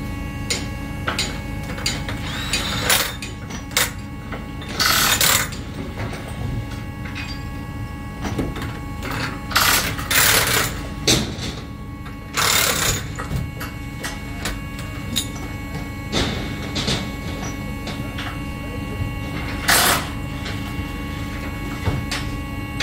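Fairground ride being dismantled: scattered metal knocks and clicks and several short loud bursts of noise over a steady machine drone.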